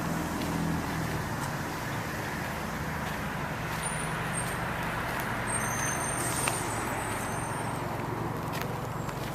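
Steady low rumble of distant motor traffic with a constant hum, and a few faint high-pitched squeaks between about four and seven seconds in.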